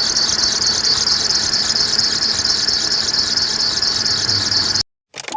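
VW Gol G4 engine running with a high, cricket-like chirp from the accessory belt drive, pulsing several times a second; the cause is a worn belt tensioner pulley bearing that wobbles back and forth. Near the end the sound cuts off abruptly, followed by two sharp clicks and a steady tone.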